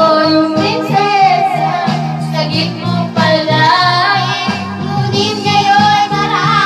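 A girl singing into a microphone over recorded backing music, with long wavering held notes over steady low accompaniment.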